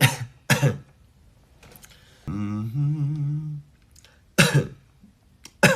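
A young man coughing in short sharp bursts, twice near the start and twice near the end. Between them he hums a short note that steps up in pitch as he tries out his voice.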